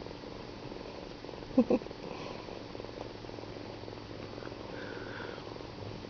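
Kitten purring steadily close to the microphone. A quick double bump about a second and a half in is the loudest sound.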